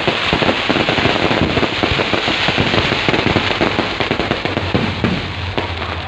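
Fireworks going off in a dense, continuous crackle of rapid pops.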